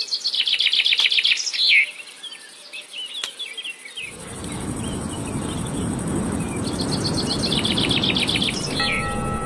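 Outdoor nature ambience: a songbird sings a fast, high trill of rapid repeated notes twice, about five seconds apart, with a few softer chirps between, over a steady high insect buzz. About four seconds in, a low, even rushing noise comes up underneath.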